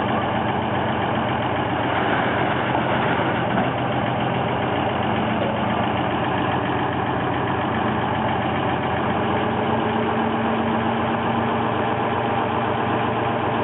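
An engine idling steadily, with an even mechanical hum throughout.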